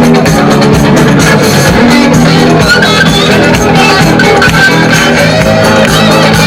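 Loud dance music with guitar and a steady beat, played back through speakers.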